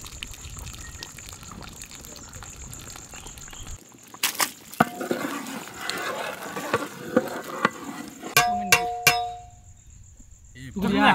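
Fish curry bubbling in a large metal pot while it is stirred with a long wooden paddle that knocks and scrapes against the pot. A few sharp clangs about two-thirds of the way in leave a short ringing tone from the metal.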